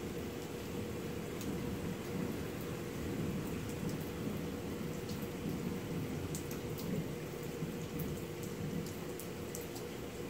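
Heavy thunderstorm rain falling steadily, a dense continuous wash with scattered sharp ticks of drops striking a hard surface.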